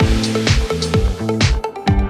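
Electronic dance music with a steady four-on-the-floor kick drum, about four beats a second, and synth notes over it.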